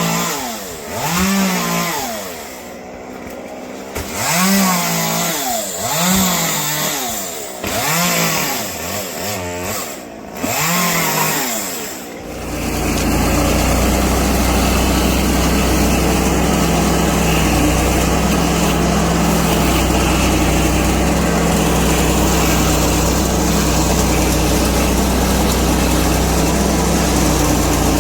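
A chainsaw engine revved up and down over and over, the pitch climbing and dropping about every second and a half. About twelve seconds in, this gives way to a loud, steady, unbroken machine drone with a low hum.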